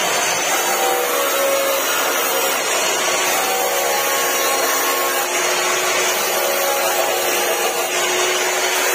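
Abrasive chop saw running steadily, cutting metal exhaust pipe.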